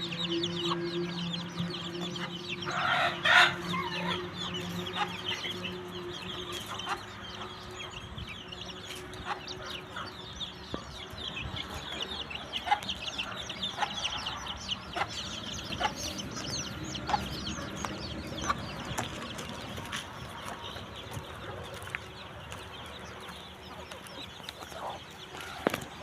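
Chickens clucking, with many short calls and a louder burst of calls about three seconds in. A low steady hum fades out over the first few seconds.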